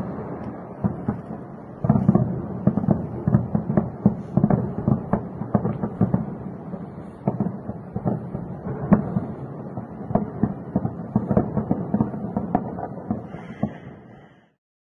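Air-defence fire over a city at night: a rapid, irregular run of distant bangs, several a second. It is sparse for the first two seconds, turns denser, and fades out near the end.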